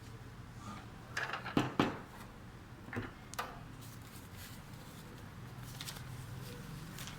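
Handling noises during unboxing: a quick run of sharp knocks and clacks about a second in, then two more single clacks around the three-second mark.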